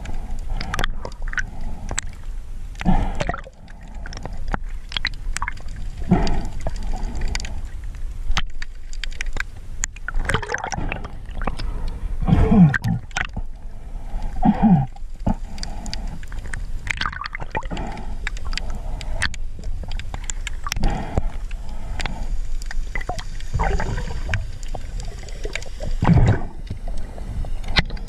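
Underwater water noise picked up by a submerged camera: a steady low rumble with gurgling surges that swell up every two to four seconds.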